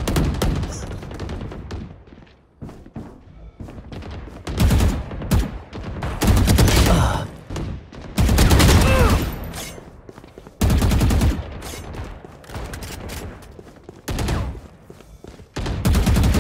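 Video game gunfire: several bursts of rapid automatic weapon fire, separated by quieter gaps of a second or two.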